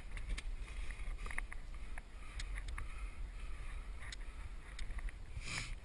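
Wind rumbling on a body-worn camera's microphone during a rock scramble, with scattered small clicks and scrapes of hands and boots on rock and a louder rustle near the end.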